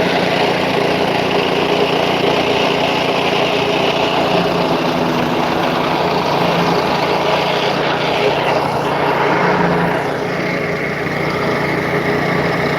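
The engine of concrete-pouring machinery running steadily at a loud, even pitch, with a slight dip in level about ten seconds in.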